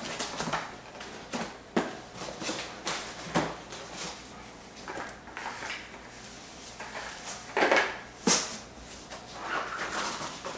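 Packaging and accessories being handled and pulled out of a cardboard box. Irregular rustles, scrapes and knocks, with the loudest two coming close together about three-quarters of the way through.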